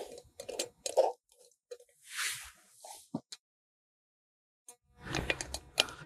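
Aluminium stovetop espresso pot (moka pot) being screwed together: metal clicks and scraping of the threads as the top is turned onto the base, with a short hiss about two seconds in. A gap of dead silence follows, then rustling and small clicks of handling near the end.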